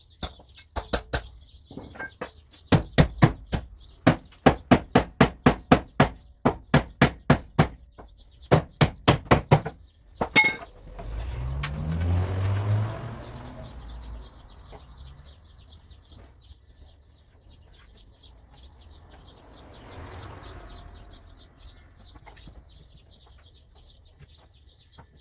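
Runs of quick, sharp metallic taps from a dent-repair hammer working a car body panel, stopping about ten seconds in. Then an engine rises and falls in pitch for a few seconds. Birds chirp faintly throughout.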